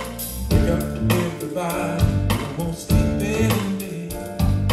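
A recorded song played back through L-Acoustics SYVA column loudspeakers with SYVA LOW and SYVA SUB bass units, with deep bass and a strong, repeated beat.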